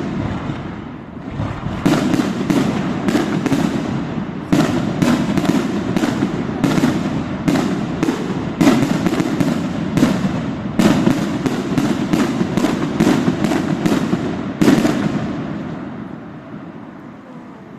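Fireworks display: a dense barrage of aerial shell bursts, many sharp bangs in quick succession over a continuous rumble, dying away over the last few seconds.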